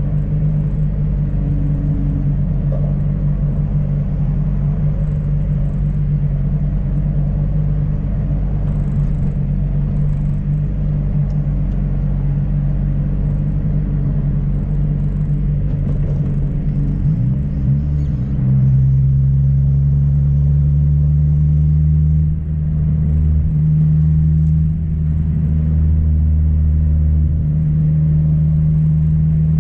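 Car engine and road noise heard from inside the cabin while driving, a steady engine drone. About two-thirds of the way through, the engine note slides down in pitch and settles lower and louder, with two brief dips in loudness shortly after.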